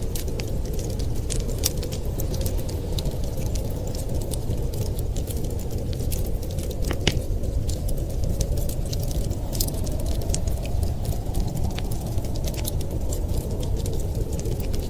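Wood fire in a fireplace crackling, with frequent sharp pops and one louder pop about seven seconds in, over a steady low rumble.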